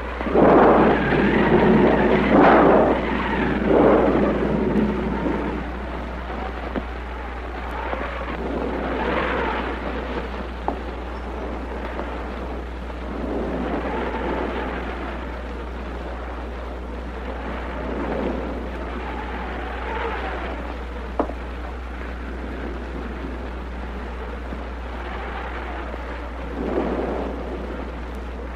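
Storm sound effects on an old film soundtrack: a loud rumble of thunder in the first few seconds, then wind-like noise rising and falling in slow swells, over a steady low hum.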